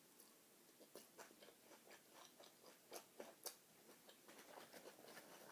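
Faint chewing of a big mouthful of salad with chicken: soft, irregular crunches and mouth clicks.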